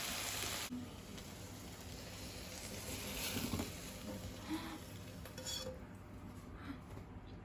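Food sizzling as it fries in a pan, cutting off abruptly under a second in, followed by faint, scattered clinks and taps of kitchen utensils and dishes.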